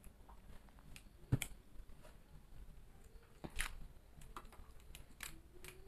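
Small plastic jelly cup being peeled and worked open by hand. The plastic gives a few scattered sharp crackles and clicks, the loudest about a second and a half in.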